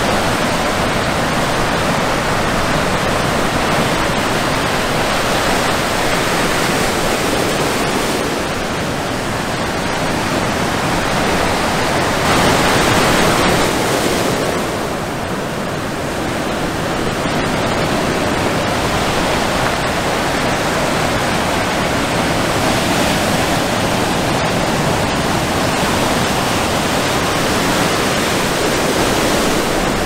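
Ocean surf breaking: a loud, steady rush of white water, swelling louder about twelve seconds in and easing off just after.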